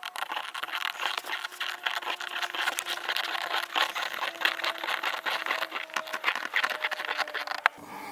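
Self-drilling screw being turned by hand through a plastic license plate frame into the car bumper: a fast, gritty crackling and scraping as it cuts its own hole, ending suddenly with a sharp click near the end.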